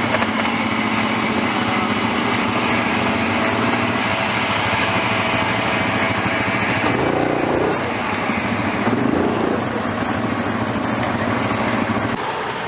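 A vehicle engine running steadily, with a slight dip in level about eight seconds in.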